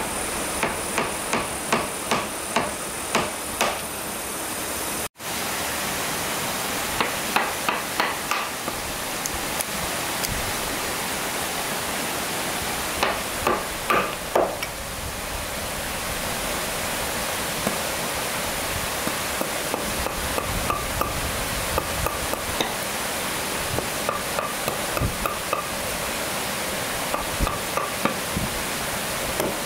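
Hammer driving nails into wood in runs of quick blows, about two a second, each with a short metallic ring, over a steady background hiss.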